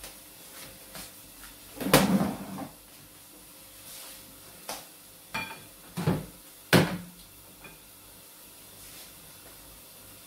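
Kitchen clatter: about half a dozen knocks and clanks as cookware is handled at the stove and counter, the loudest about two seconds in and again near the end, one of them with a brief metallic ring.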